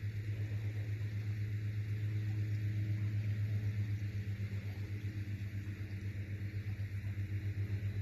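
Steady low hum of an idling engine, with a fast, even throb.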